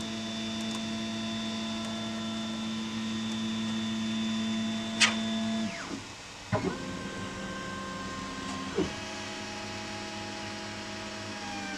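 3D printer running, its motors whining at several steady pitches that jump abruptly to new pitches a few times as the print head's moves change, as it lays down a breakaway support. A sharp click sounds about five seconds in.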